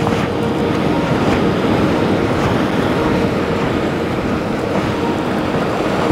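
Ocean surf breaking and washing over shoreline rocks in a steady rush, with wind on the microphone.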